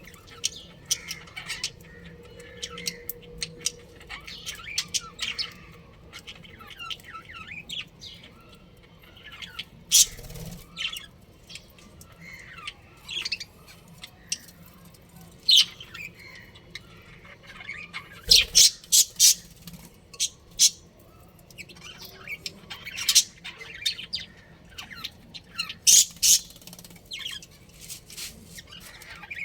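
Budgerigars chirping and squawking: many short, sharp, high calls, with clusters of louder shrill calls in quick succession a little past halfway and again later on.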